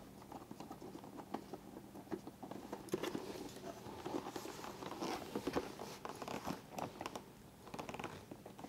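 Hands working on a helmet's plastic shell and communicator mount: faint, scattered small clicks and rustles as the small mounting screws are turned by hand and the helmet is shifted.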